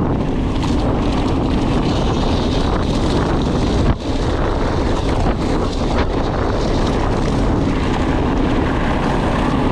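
Wind rushing over the microphone and knobby tyres roaring on a loose gravel fire road as a mountain bike descends at high speed, with a faint hum that rises and falls. A brief knock about four seconds in.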